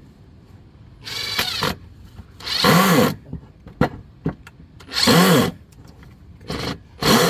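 Power drill driving screws into wood in five short bursts, its motor speeding up and slowing down with each pull of the trigger, with a couple of sharp clicks between.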